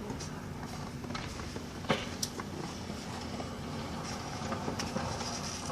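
A motor vehicle's engine runs steadily, with scattered light clicks and one sharp knock about two seconds in.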